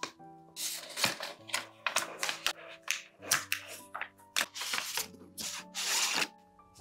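Protective plastic film being peeled off a smartphone in a run of short crackling rips, over soft background music.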